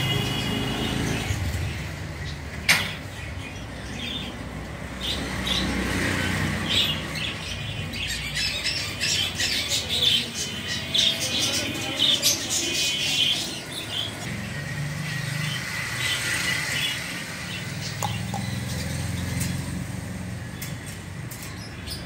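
Budgerigars chirping and chattering in short bursts, with warbling runs of notes in the middle of the stretch. A single sharp knock sounds about three seconds in.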